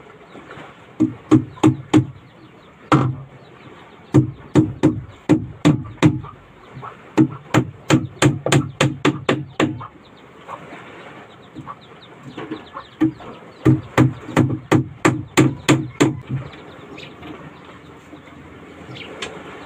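Hammer blows nailing the plywood side of a small wooden boat to its frame, in runs of quick strikes, up to about four a second, with short pauses between the runs.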